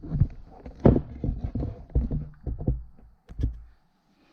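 Handling noise: a string of knocks and thumps as the camera is picked up, turned and set back down, the loudest about a second in.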